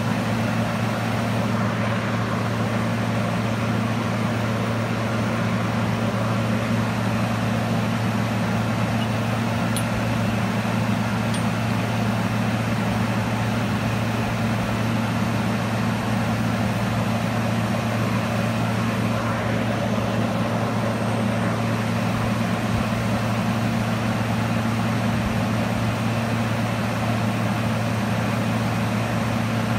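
Steady hum and even rush of air from a 25 kW air-cooled induction heating power source and its forging inductor, running continuously while steel trowel blanks heat in the coil. A low hum holds the same pitch throughout.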